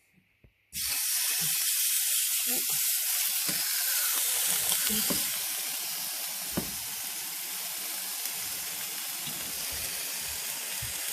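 Beef steak sizzling in a hot frying pan, the sizzle starting suddenly about a second in, louder for the first few seconds and then settling into a steady hiss. A single sharp click comes about halfway through.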